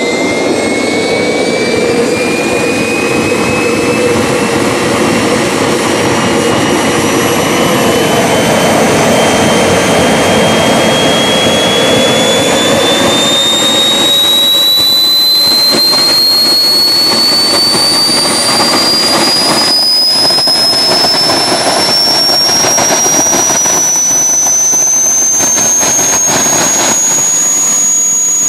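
Small jet turbine engine running loud, a rushing blast under a high whine that climbs steadily in pitch as the turbine spools up, levelling off near the end. It is loud enough to overload the microphone.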